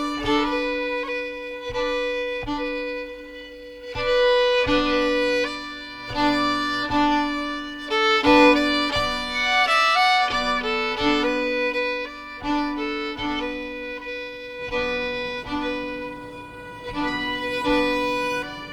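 Background music led by a fiddle, playing a melody of held and shorter notes.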